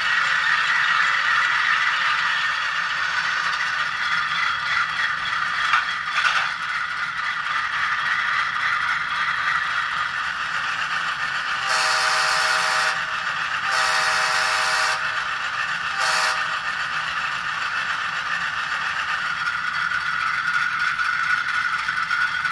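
A DCC sound decoder plays a GE Dash 8-40C diesel locomotive idling, tinny through a tiny 9 × 16 mm speaker. About halfway through the horn sounds two long blasts and one short one.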